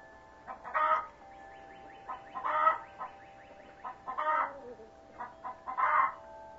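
Chickens clucking and cackling: runs of short clucks building to a louder call, about four times, every second and a half or so.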